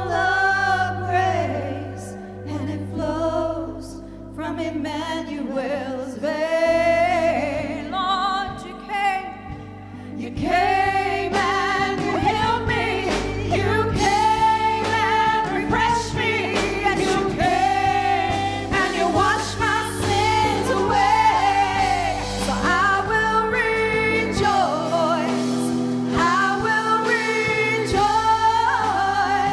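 Gospel worship singing with instrumental accompaniment under it, sparser for the first ten seconds or so and then fuller and louder.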